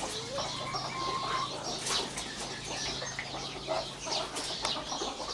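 Rhode Island Red chicks peeping in quick, high chirps beside their Thai fighting-breed mother hen, who clucks.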